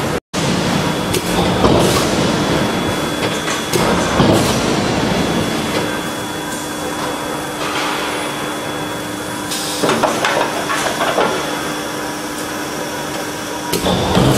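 Hot-forging shop machinery running loudly, with repeated metallic clanks and knocks and a steady hum through the middle that stops near the end. The sound cuts out for a moment just after the start.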